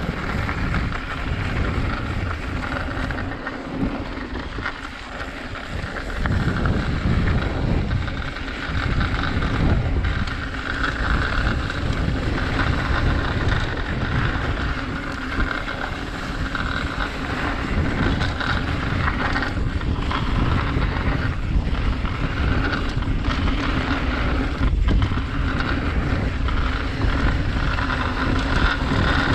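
Wind buffeting a GoPro microphone on a mountain-bike descent, with tyres rolling over a dirt trail. It gets louder about six seconds in as the bike picks up speed, and sharp knocks come now and then as the bike clatters over bumps.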